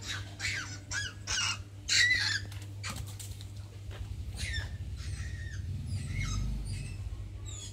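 Short high-pitched squeaking calls, several in quick succession; the loudest come about two seconds in and the rest are fainter, falling chirps.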